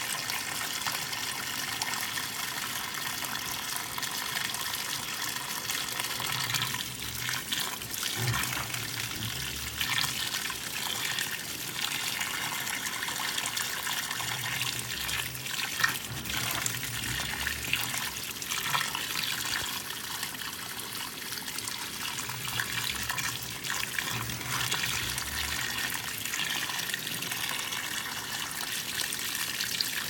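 LG top-load washer filling: water pours and splashes into the tub in a steady rush. A low hum comes and goes in stretches of a few seconds.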